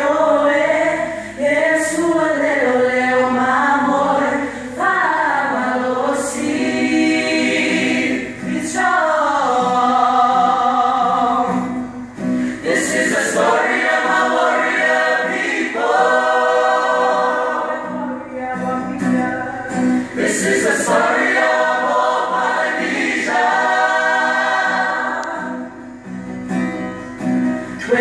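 Mixed choir of men's and women's voices singing a Samoan song a cappella in harmony, in sustained phrases of a few seconds with brief breaks for breath.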